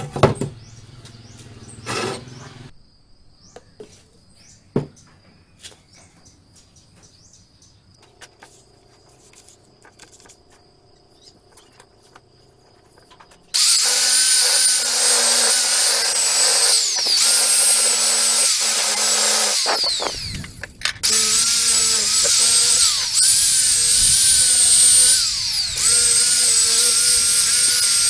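After some light clicks, a handheld electric drill spinning a buffing wheel starts about halfway in, polishing an aluminium scooter crankcase cover with a steady high whine. Around two-thirds of the way through it winds down, stops for a moment, then starts again.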